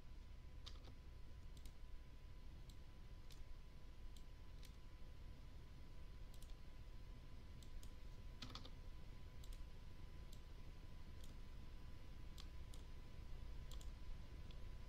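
Faint, irregular clicks of a computer mouse and keyboard while a curve is drawn in pattern-drafting software, about twenty scattered clicks with a stronger one past the middle.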